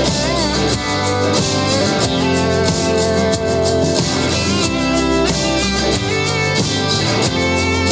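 A pop song's instrumental passage with a steady beat, played at full volume through a Minirig portable Bluetooth speaker with a Minirig Subwoofer 3.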